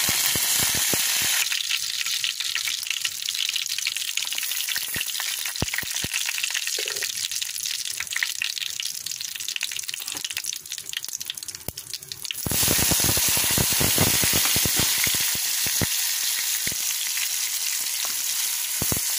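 Hot oil sizzling in a kadai as curry leaves fry in a tempering. After a loud first second it settles to a crackle full of small pops, then jumps to a loud sizzle about twelve seconds in as chopped onion and tomato go into the oil.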